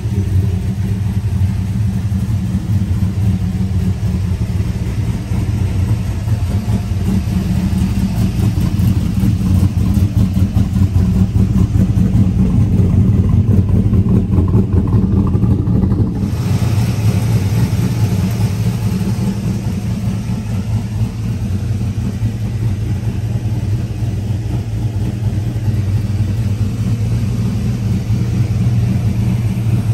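Cammed 5.3-litre V8 (Brian Tooley Racing cam) of a 2005 GMC Sierra idling steadily.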